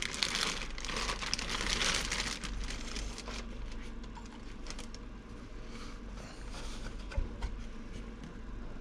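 Plastic bag and soft foam wrapping crinkling and rustling as they are pulled off a screen. The crinkling is loud for the first few seconds, then turns to softer rustles and a few small clicks.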